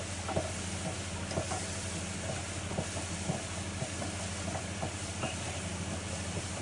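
Chopped onion and garlic sweating in oil in a small saucepan over gentle heat: a soft, steady sizzle, with a wooden spoon scraping and tapping the pan now and then as it stirs. A steady low hum runs underneath.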